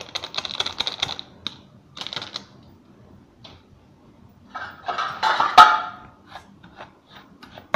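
Rapid crackling and clicking of a plastic sachet being shaken and tapped as its powder is emptied into a steel bowl, with a louder, briefly ringing rattle and scrape near the middle.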